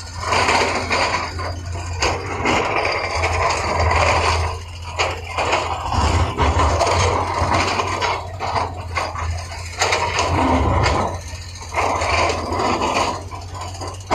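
Heavy earthmoving machine's diesel engine running with a steady low hum, under repeated bursts of scraping and clanking from its work in rock and soil.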